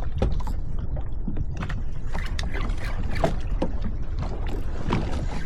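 Water lapping and splashing against a jet ski's hull at sea, over a steady low rumble, with scattered small knocks and clicks.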